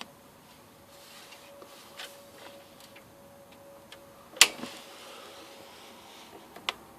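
A few sharp clicks, the loudest about four and a half seconds in and another near the end, over a faint steady hum.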